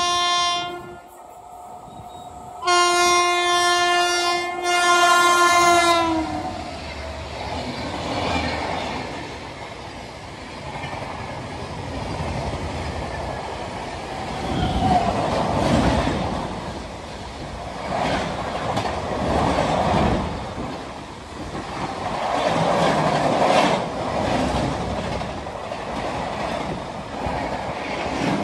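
An Indian Railways WAP-7 electric locomotive's horn sounds a short blast and then a longer one of about three and a half seconds, which sags in pitch as it ends. Two express trains then pass on adjacent tracks, their wheels rumbling and clattering over the rail joints, the noise swelling and fading several times.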